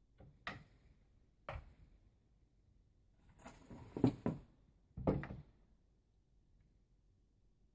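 Airsoft gun making a few separate sharp clicks and knocks: one about half a second in, one at about a second and a half, a tight cluster around four seconds, and a last one at about five seconds.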